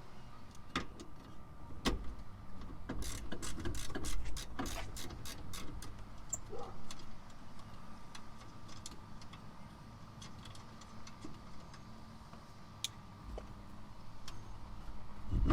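A 3/8-inch ratchet with a 13 mm socket clicking as it backs out the seat-rail nuts, a quick run of clicks a few seconds in and scattered single clicks and light knocks of metal on metal.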